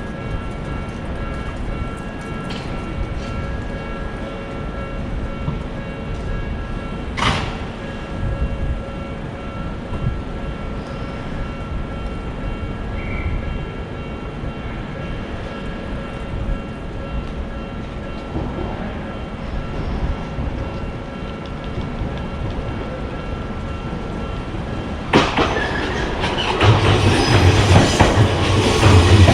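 Odakyu Line train: a steady low rumble with a few faint steady tones and a single sharp click about seven seconds in. About 25 seconds in the sound turns suddenly loud as a train comes close, and a heavy low drone builds toward the end.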